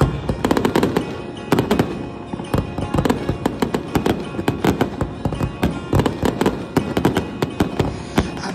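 Aerial fireworks going off in quick succession, a dense run of sharp bangs and crackles, several a second, over background music.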